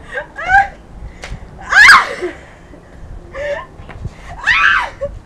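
Girls shrieking and laughing, a few separate high cries with pitch sliding up and down, the loudest about two seconds in.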